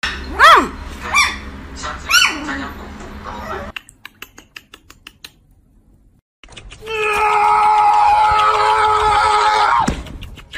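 Poodle puppy yipping: three short high cries in the first two seconds, each rising then falling in pitch. After a quiet spell comes a long, steady, high cry of about three seconds that drops in pitch as it ends.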